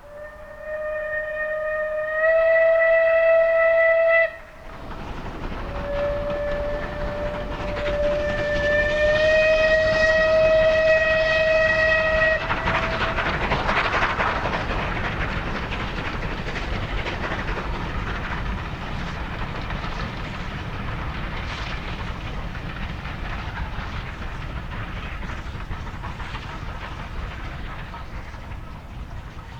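Steam locomotive whistle, a single shrill note: a blast of about four seconds that steps up in pitch halfway and cuts off abruptly, then a longer blast of about six seconds that rises a little in pitch partway through. After the second blast comes the steady rush and rail clatter of the train running past, slowly fading.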